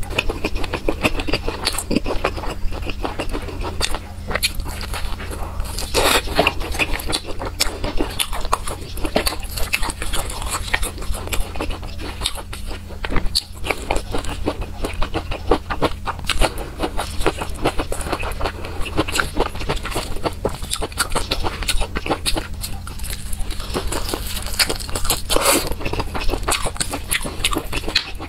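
Close-miked chewing and biting of chili-sauced fried skewers: a dense, continuous run of sticky mouth clicks and smacks over a low steady hum.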